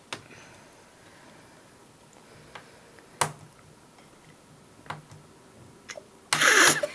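Small sharp clicks of a tiny screwdriver working the screws of a laptop screen panel, about five of them spaced out. A louder, brief scraping clatter comes near the end.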